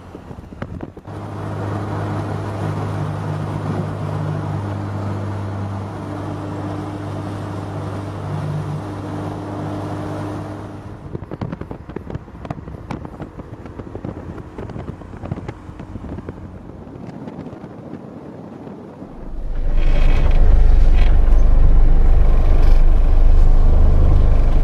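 Car engine running steadily, then quieter for several seconds with scattered clicks, then a much louder low rumble that sets in about three-quarters of the way through.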